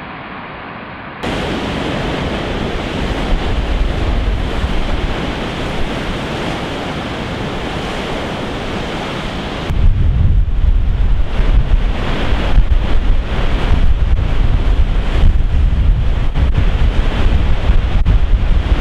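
Heavy storm surf crashing and churning against a rocky shore, with strong wind buffeting the microphone. It grows louder about a second in, and from about ten seconds in the wind's low, gusting rumble on the microphone dominates.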